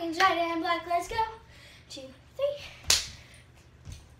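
A girl's drawn-out cheer chant that stops about a second in, followed by a single sharp hand clap about three seconds in.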